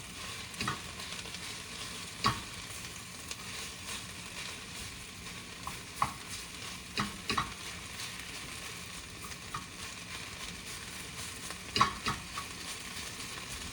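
Onions and spinach sizzling steadily in a frying pan, with a handful of sharp clicks and scrapes as a utensil stirs and knocks against the pan.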